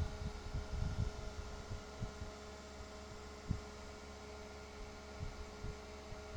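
A steady low electrical hum, with a number of brief, soft low thumps scattered through it; the clearest thump comes about halfway through.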